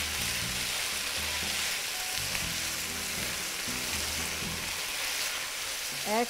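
Sliced potatoes, onion and jalapeño sizzling steadily in hot oil in a frying pan with freshly added tomato sauce, stirred with a wooden spatula.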